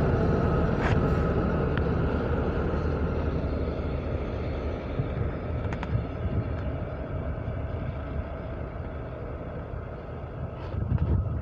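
A locomotive-hauled train of Helsinki metro cars rolling past on the rails: a steady low rumble of wheels on track that slowly fades as the train moves away, with a few faint clicks.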